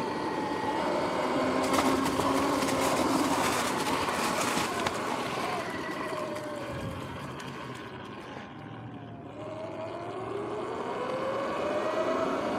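Sur-Ron X electric dirt bike's motor and belt drive whining while riding, the pitch falling as it slows about eight seconds in and rising again as it speeds back up. A rush of wind and tyre noise is loudest in the first few seconds.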